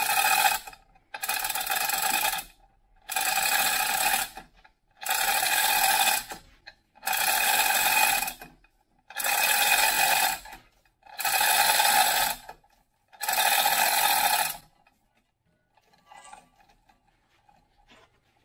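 Chain hoist working in a run of about eight spells of roughly one and a half seconds each with short pauses between, as it shifts a heavy cast-iron mill table; it stops about fourteen and a half seconds in, leaving only faint small knocks.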